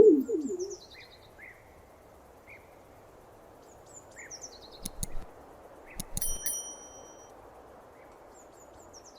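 A pigeon cooing once right at the start, the loudest sound. After it, over a steady outdoor background, small birds give faint short chirps and quick descending trills a few times. Two sharp clicks come around five and six seconds in, the second followed by a brief high ringing tone.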